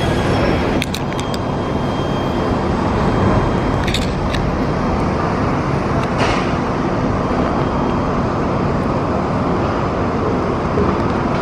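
Steady loud rumble and hiss of an underground metro platform, with a metro train at the track.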